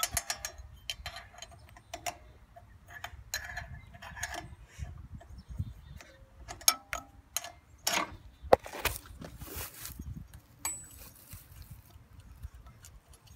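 Hand ratchet wrench clicking in short irregular runs as bolts are worked loose, with a few sharper metal knocks near the middle and a brief scraping rattle just after.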